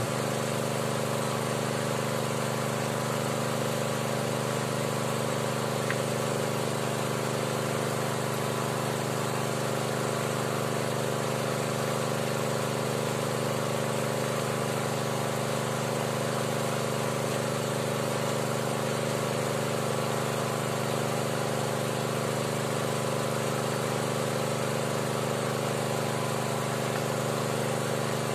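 Small engine-driven water pump running steadily at an even speed, pushing water through a hose into the drill pipe of a hand-bored well.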